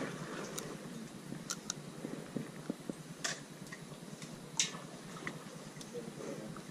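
Faint, irregular clicks and light handling noise over a quiet background hiss; the sharpest click comes about four and a half seconds in.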